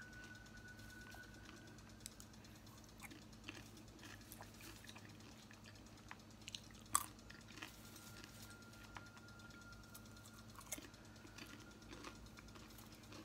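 Faint, scattered crunching and clicking of someone chewing popcorn, with one sharper crunch about seven seconds in.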